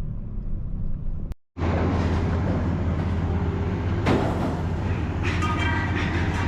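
An engine running with a steady low hum. A short cut about a second and a half in leads to a louder engine hum with rushing noise, a single knock about four seconds in, and a brief high whine near the end.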